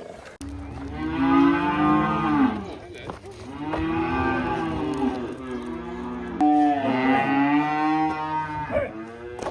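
Cattle mooing: three long, drawn-out calls one after another.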